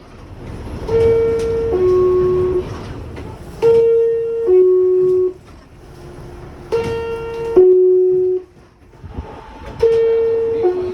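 R62A subway car door chimes: a two-tone descending chime, a high note then a lower one, sounding four times about every three seconds over a low rumble. This is the chime that warns the doors are about to close.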